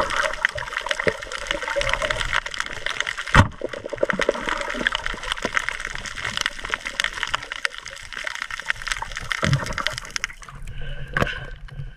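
Underwater sound picked up with the microphone below the surface: rushing water and a dense, steady crackle of fine clicks, with one sharp knock about three and a half seconds in.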